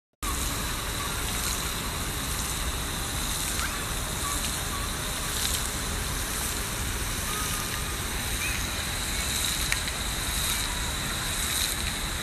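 Steady outdoor city ambience: an even hiss with a low rumble under it and a thin, steady high tone. It cuts in suddenly after a brief silence at the start.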